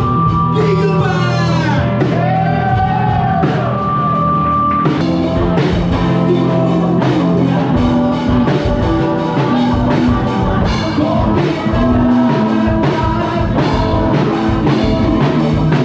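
Rock music with singing, guitar and drums, loud and steady throughout.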